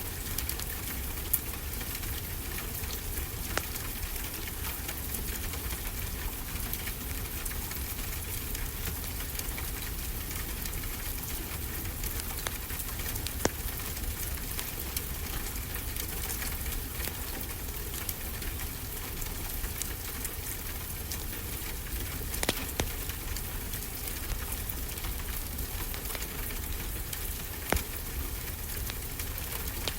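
Steady rain hiss with a wood fire crackling, scattered sharp pops standing out now and then.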